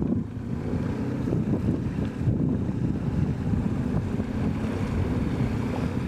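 Small boat motor running steadily, mixed with wind buffeting the microphone and water noise.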